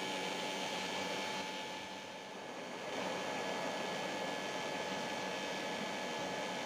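Charcoal forge's electric air blower running: a steady rush of air with a mains-like hum, easing briefly about two seconds in and then coming back, as it blows the coals up to heat a knife blade.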